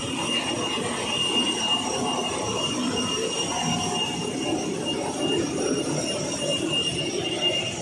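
Jet aircraft noise: a steady high whine over a broad rumble.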